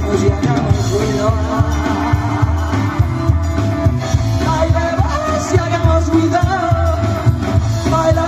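A rock band playing a joropo live, with singing over a steady pulsing bass.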